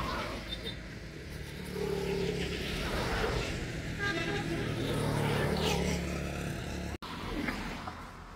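A motor vehicle's engine running steadily, with a low hum.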